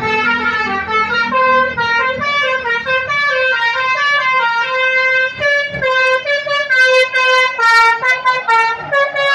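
Indonesian bus 'telolet' horn, a multi-tone musical air horn, playing a tune of quick stepped notes with a few longer held ones.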